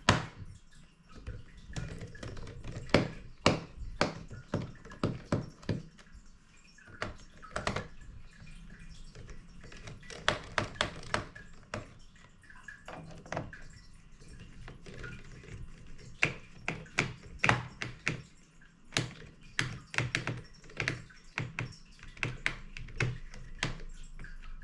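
Precision screwdriver working the captive screws of a Dell G5 laptop's bottom panel: many small, irregular clicks and taps of metal bit on screw heads and plastic case, with light ticks as a screw comes fully loose.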